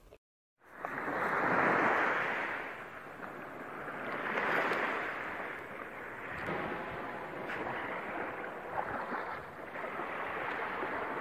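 Sea surf washing up a beach, the sound fading in just under a second in and then rising and falling with each wave, roughly every two to three seconds.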